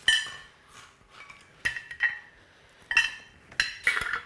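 A metal utensil clinking against a small glass jar: about six sharp, briefly ringing clinks at uneven intervals.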